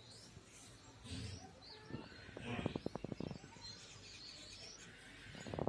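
Birds chirping faintly in short high calls. A brief, louder low pulsing sound comes about two and a half seconds in.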